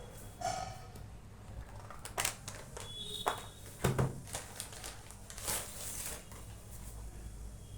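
Packaging and books being handled during an unboxing: crinkling rustles and a handful of sharp clicks and taps, scattered irregularly.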